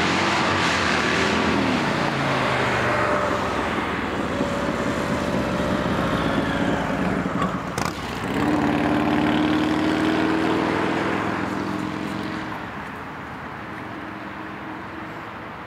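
Cars pulling out one after another, engines revving as they drive off: the first engine note rises and falls, then slides down in pitch as it moves away. A sharp click about 8 s in, then a second car's engine note holds steady and fades near the end.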